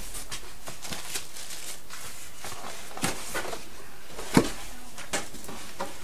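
Styrofoam packing and a plastic-wrapped appliance being handled during unboxing: a few short knocks and rubbing sounds, the loudest about four and a half seconds in, over a steady hiss.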